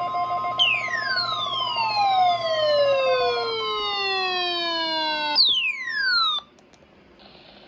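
Steady high weather-radio warning alarm tone, with a lower pulsing tone under it for the first few seconds. Over it a pitch glide falls slowly from high to low over about five seconds, then a second, quicker falling glide follows. Everything cuts off suddenly about six seconds in.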